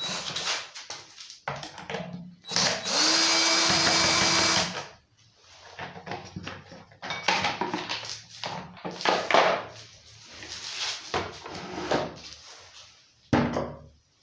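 Cordless drill-driver with a T25 Torx bit running steadily for about two seconds, unscrewing a cover screw on a chainsaw. Irregular clatter and knocks of tools and parts being handled before and after it.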